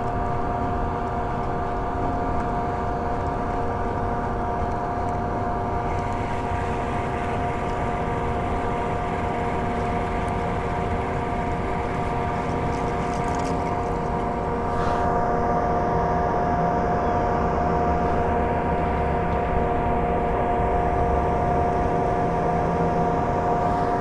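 A steady mechanical hum that holds one unchanging pitch throughout, over a low rumble, growing slightly louder a little past halfway.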